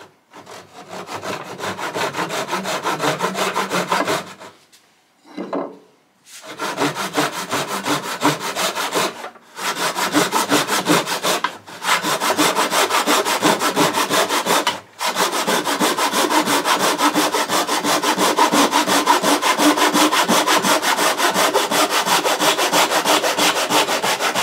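Japanese pull saw cutting through a wooden bar stool leg in quick back-and-forth strokes, stopping a few times for brief pauses. The saw runs flush against a plywood guide to cut the leg off square, and it cuts through smoothly.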